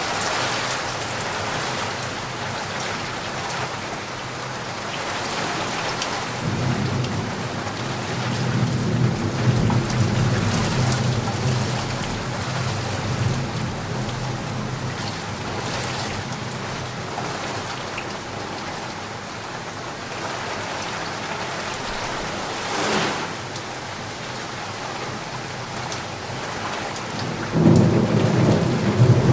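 Rain falling steadily through a thunderstorm. A long low thunder rumble builds from about a quarter of the way in and fades before the halfway mark, a short sharp clap comes about three-quarters in, and another rumble starts near the end.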